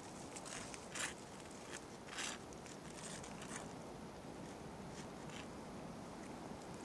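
Faint steady hiss with a few short, sharp rustles or scratches: one about a second in, the loudest a little after two seconds, and fainter ones around three seconds.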